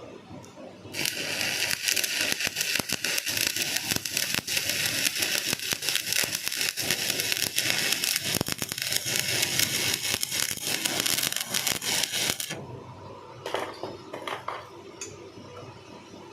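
Electric arc welding on a pulley: a steady, dense crackling hiss that starts about a second in and cuts off abruptly after about eleven seconds. A few short knocks follow near the end.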